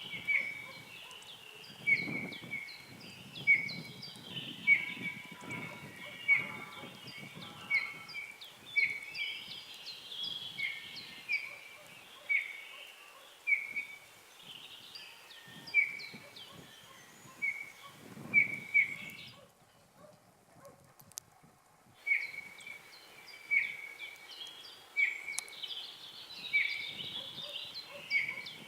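A small bird calling over and over, a short sharp note repeated roughly once every second or so, with a few low rumbles underneath. The sound drops out for about three seconds past the middle.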